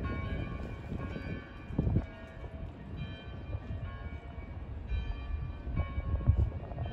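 Church bells of several city churches ringing together with the Dom tower's carillon at noon, new bell strokes entering over the lingering tones. Wind rumbles on the microphone underneath.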